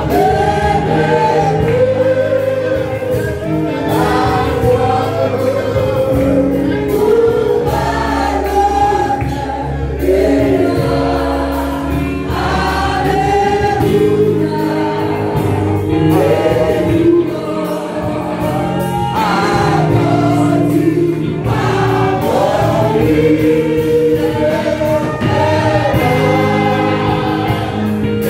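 A church congregation singing a gospel hymn in chorus, led by a woman singing into a microphone, over sustained instrumental chords and a steady beat.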